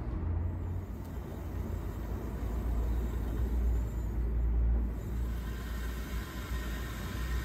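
Hydrogen gas flame burning in the firebox under a small model steam engine's boiler: a steady rumbling rush, quite an aggressive flame, growing a little louder about halfway through. The boiler is still heating, short of operating temperature.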